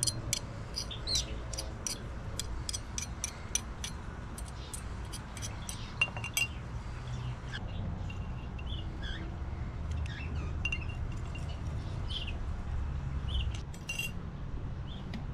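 Rapid light clicks and clinks for the first six seconds or so, then scattered short bird chirps over a steady low rumble.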